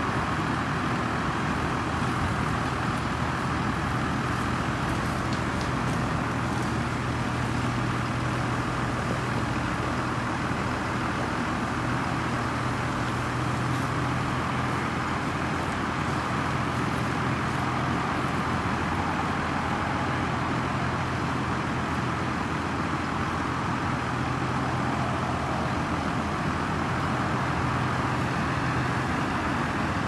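Diesel tractor engine running steadily under load, pulling a mounted plough through the soil.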